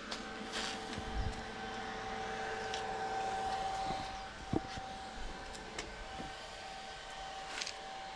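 A steady mechanical hum holding two steady notes, with a few light clicks and taps scattered through it.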